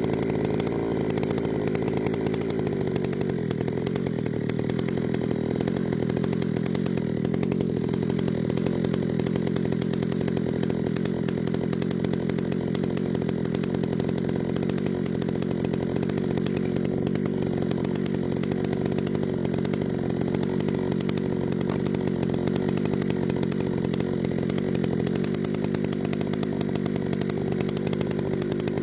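Holzfforma G395XP two-stroke chainsaw with a 42-inch bar and ripping chain, running steadily at high revs under load as it rips lengthwise through a log in an Alaskan chainsaw mill.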